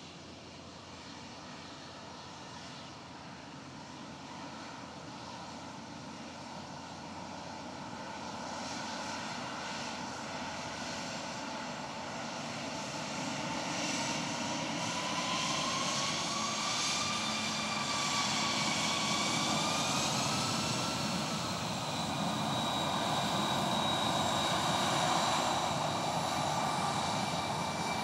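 Jet airliner engines approaching, a steady jet noise growing gradually louder, with high whining tones that waver up and down in pitch.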